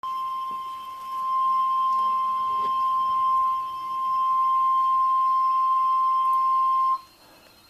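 NOAA Weather Radio 1050 Hz warning alarm tone: one steady, high-pitched tone held for about seven seconds, then cutting off suddenly. It is the alert signal that announces a warning broadcast, here a tornado warning.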